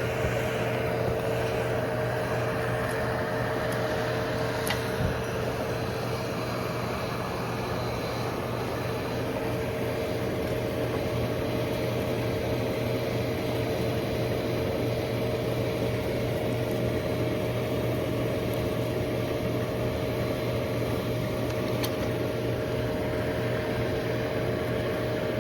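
A steady mechanical hum, like a blower or motor running, holding a few constant tones without change.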